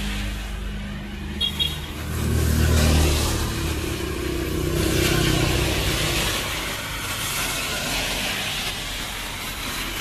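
Road traffic on a wet street: cars passing with their tyres hissing on the wet asphalt and a low engine rumble that swells about two to three seconds in. Two short high beeps sound about a second and a half in.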